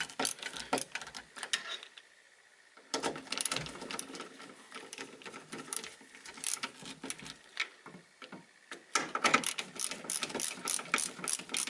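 Hand screwdriver with a long posi bit tightening binding screws into a ski: runs of rapid clicking, broken by a short pause about two seconds in and another near eight seconds.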